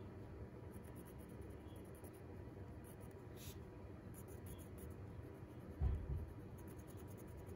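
Pencil scratching faintly on a paper card in short strokes as small chair symbols are drawn. A low thump about six seconds in.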